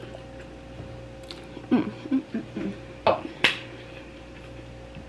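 Someone eating: a few brief murmured mouth sounds about two seconds in, then two sharp clicks, over a steady low electrical hum.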